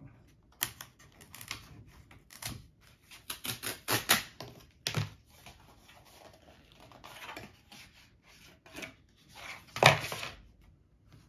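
Thin cardboard packaging being torn open along its tear strip and handled: a string of short rips and rustles, then a louder rustle and knock near the end as the cardboard is put down on a wooden table.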